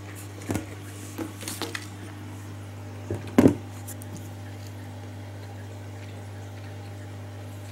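Handling noises: a few light clicks and rustles, then a louder knock about three and a half seconds in, over a steady low hum.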